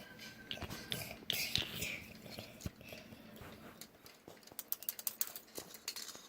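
Lego-brick fidget spinners spinning, their plastic parts clicking and rattling in quick irregular ticks, thickest near the end.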